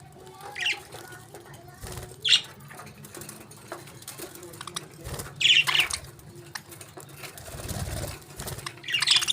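Pet parakeets chirping in short, separate bursts of call, with a few soft low thuds between them.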